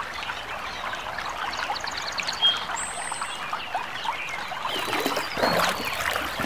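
River water trickling and splashing around wallowing hippos, with a few faint bird chirps about two seconds in and a louder splash near the end.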